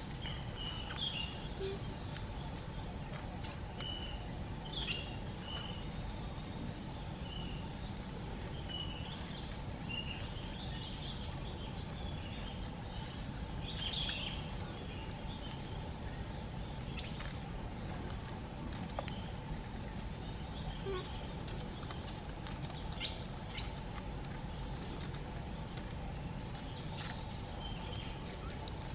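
Outdoor ambience: a steady low background noise with short high chirps of birds scattered throughout, and a few faint light clicks such as dry leaves crackling underfoot.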